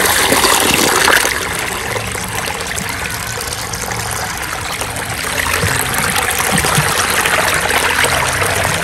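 Water pouring into a shallow earthen channel and running fast over stones: a steady splashing, gurgling flow, loudest at the start.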